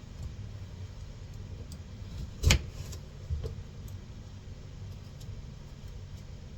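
Steady low hum of a washing machine running, with one sharp knock about two and a half seconds in and a smaller one just under a second later.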